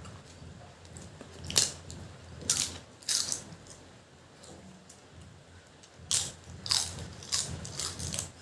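Crisp food being bitten and crunched close to the microphone: a run of sharp crunches, then a quieter pause, then another run of crunches near the end.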